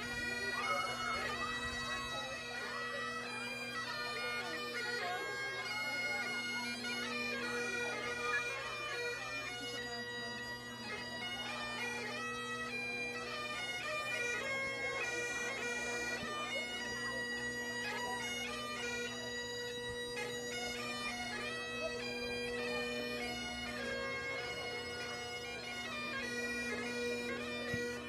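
Highland bagpipe playing a tune: the melody notes move over steady, unbroken drones.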